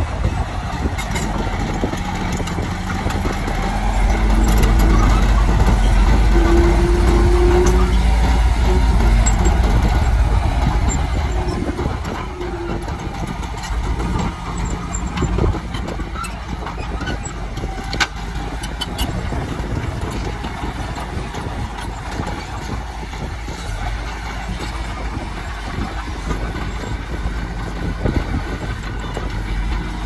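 Komatsu D60P crawler bulldozer's diesel engine working hard as it pushes soil. It swells to a heavy rumble a few seconds in and holds for several seconds, then settles to a steadier run, with a few sharp clanks partway through.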